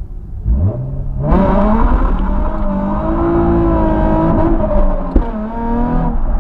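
2005 Nissan 350Z's 3.5-litre V6 through a Scorpion un-resonated cat-back exhaust with Y-pipe and high-flow sports cats, pulling away from a stop under hard acceleration, its note rising and then dropping sharply near the end. A short sharp crack comes just after five seconds in.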